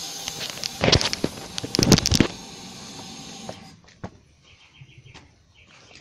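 Phone being handled, with rustling and knocks against clothing over a steady hiss that stops about three and a half seconds in. Faint bird chirps follow.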